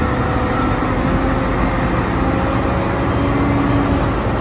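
Caterpillar 992G wheel loader's diesel engine running steadily as the loader tips a bucket of soil into a dump truck.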